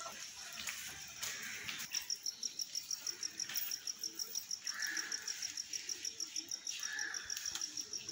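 Cricket chirping: a high, evenly pulsed trill at about six pulses a second that starts about two seconds in and keeps going.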